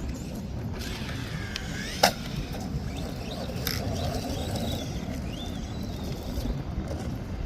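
ARRMA Vortex RC car's electric motor whining as it revs up and down, with a sharp knock about two seconds in, over a steady low rumble.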